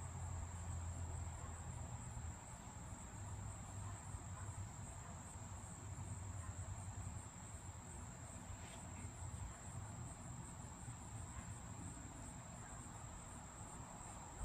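Crickets chirping: a steady high trill that pulses evenly about three times a second.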